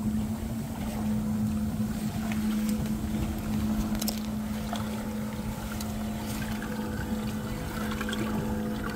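12V air pump for a live well running flat out with a steady, even buzzing hum, the motorcycle-engine-like drone of an aerator driven at full power with no dimmer. Small splashes and bubbling water over it.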